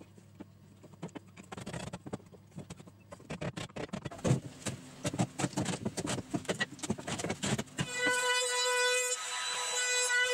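Wooden pieces knocking and clattering as they are handled and set on the bench, then about eight seconds in a cordless trim router starts and runs with a steady high whine.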